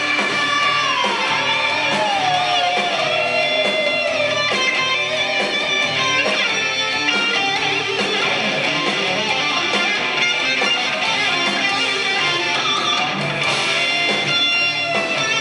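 Live heavy rock band playing an instrumental passage: electric guitars over bass and drums, amplified through the venue's PA. One guitar line slides down in pitch over the first few seconds.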